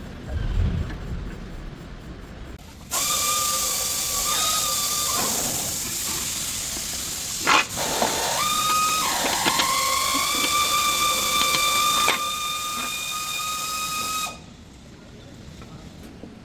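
Compressed-air tool running: a loud air hiss with a steady whistling whine, lasting about eleven seconds from a few seconds in, with a brief catch about halfway through.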